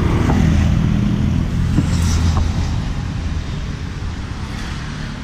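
Street traffic: a vehicle's engine hum swells loudest in the first couple of seconds, then fades away, with a single light click about two seconds in.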